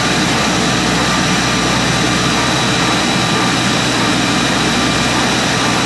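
A jet turbine running steadily: a loud, even roar with a constant high-pitched whine on top, unchanging throughout.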